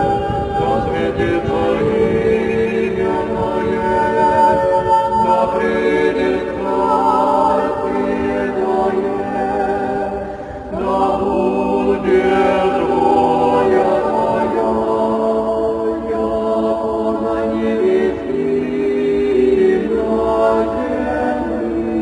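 Background music: voices singing long held notes in harmony, with a short dip in level about halfway through.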